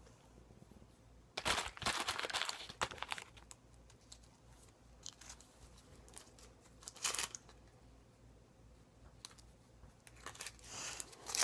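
Crinkling and tearing of a Dum Dums lollipop wrapper being handled and unwrapped, in bursts: a longer spell about one and a half seconds in, short crackles around the middle, and more building near the end.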